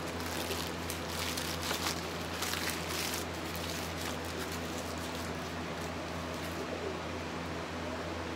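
Paper fast-food wrapper crinkling and rustling for about three seconds, over a steady low electrical hum that runs throughout.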